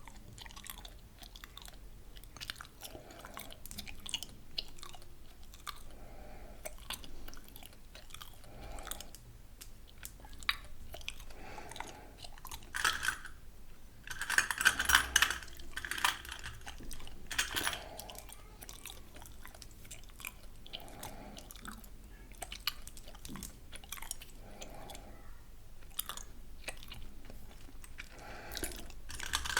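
Gum chewed close to the microphone: steady wet smacking and small clicks, with a run of louder, sharper smacks about halfway through.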